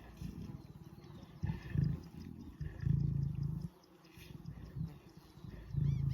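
Lion growling in three low rumbling bouts at a wildebeest kill: a male guarding the carcass and showing dominance to keep the other lions off.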